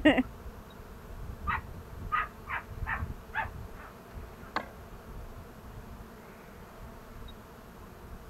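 Honeybees buzzing around an opened hive. A quick run of about six short sounds comes about a second and a half in, and a single sharp click a little later.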